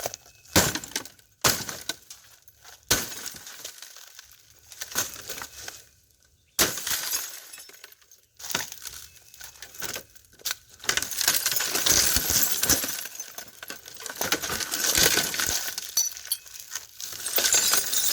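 Sledgehammer blows on a flat-screen TV's glass panel: a handful of sharp, separate impacts in the first seven seconds, then a long, loud stretch of glass breaking, crunching and tinkling as shards fall.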